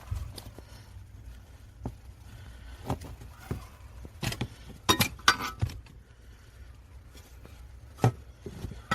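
Metal parts being handled during clutch pedal removal: irregular clinks, knocks and rattles, busiest in a cluster about halfway through.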